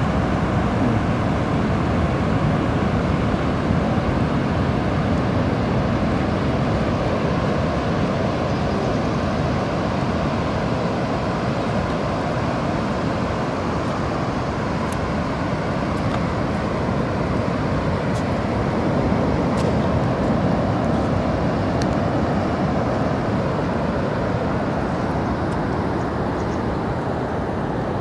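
Surf breaking on a distant reef edge, a steady, even rushing noise with no single waves standing out.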